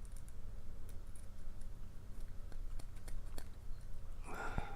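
Faint, scattered small clicks of metal padlock parts being handled and fitted into the body of an old Yale padlock, over a steady low hum. A short murmur of a man's voice near the end.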